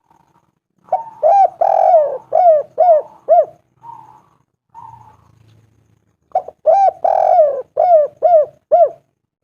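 Spotted dove (tekukur, derkuku) cooing in two phrases, each a quick run of about seven rising-and-falling coos with one longer drawn note near the start.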